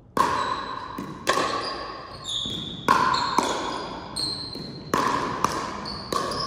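Pickleball doubles rally: paddles striking a plastic ball and the ball bouncing on a gym floor. The sharp pops come about every half second, each with a short ring.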